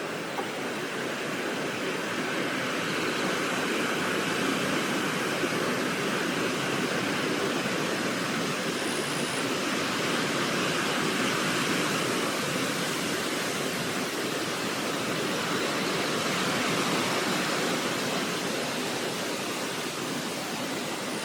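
Steady rush of flowing water, an even hiss that swells slightly through the middle.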